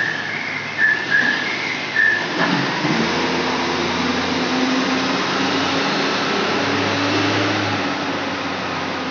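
Heavy forklift's engine running as the truck drives off, its note coming up strongly about two and a half seconds in. A high whistling tone sounds on and off during the first two seconds.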